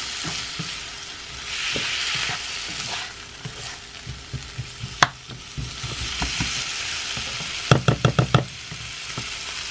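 Diced onions, green peppers and garlic sizzling in a nonstick frying pan as they are sautéed and stirred with a slotted spatula. A sharp clack about halfway and a quick run of about five knocks near the end are the spatula striking the pan.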